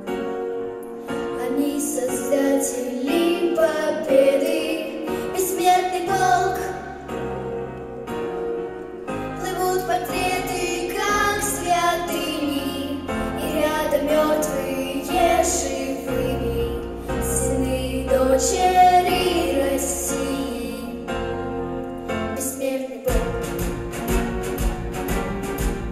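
Two young girls singing a song into stage microphones over a recorded accompaniment. A steady beat comes into the backing near the end.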